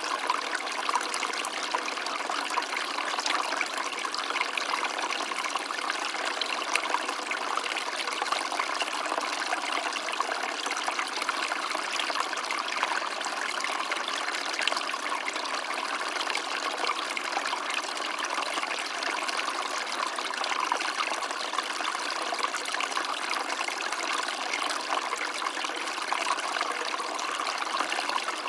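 Small stream of water running and trickling over stones, a steady babble.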